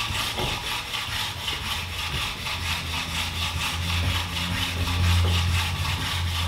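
A whetstone rubbed back and forth on a flattening stone, stone grinding on stone in quick, even scraping strokes. The stone's face is being lapped flat to take out the dip worn into it by sharpening.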